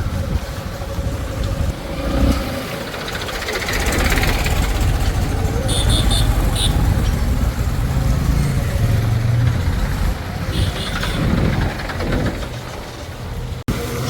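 Heavy diesel machinery, a backhoe loader and tractors, running, with the engine note rising and falling as it works. A few short, high-pitched chirps come twice.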